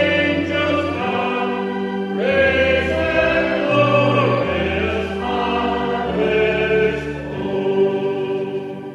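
A congregation singing a hymn with instrumental accompaniment, held notes over a steady changing bass line, the last notes tailing off at the end.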